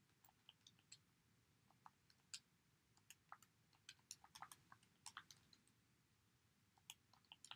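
Faint, irregular clicks of calculator keys being pressed one after another, some in quick runs, as a calculation is keyed in again to check the result.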